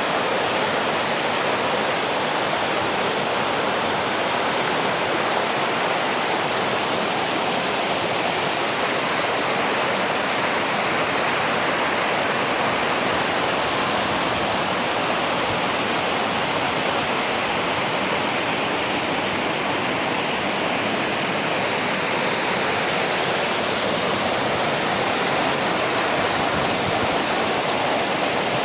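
Waterfall water rushing: a loud, steady, unbroken wash of falling water with no change in strength.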